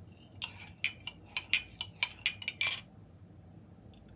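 Light clinking: about ten quick chinks, each with a brief ringing tone, over about two and a half seconds, as hard glass or metal is struck lightly.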